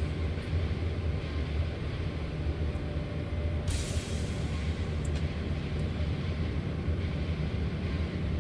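Steady low hum, with a brief hiss a little under four seconds in.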